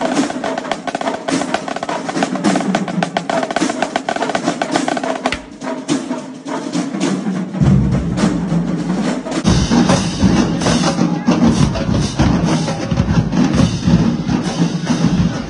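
Marching drumline playing a cadence: fast snare drum strokes and rolls, with bass drums coming in heavily about halfway through.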